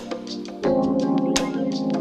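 Background music with held chords and a sharp beat about every second and a half, getting louder just past halfway as the chord changes.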